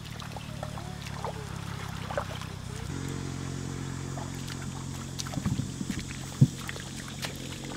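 Splashing and sloshing of feet and hands wading in shallow muddy paddy water, with one sharp splash about six and a half seconds in, over a steady low hum.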